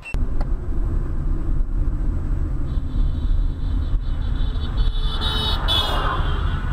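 Steady low road and engine rumble of a car driving, as picked up by a dashcam inside it. A high, thin whine joins about three seconds in, and the noise brightens a little around five to six seconds.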